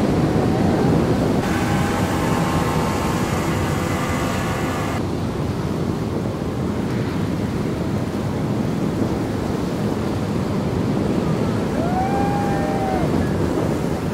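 Ocean surf breaking, with wind buffeting the microphone in a steady dense rush. A steady hum is heard for a few seconds near the start, and a brief pitched call rises and falls near the end.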